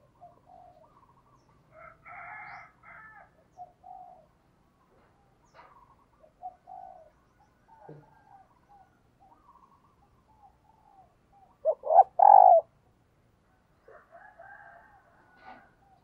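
Spotted dove cooing: soft, scattered coo notes, with a much louder pair of coos about twelve seconds in and a further run of notes near the end.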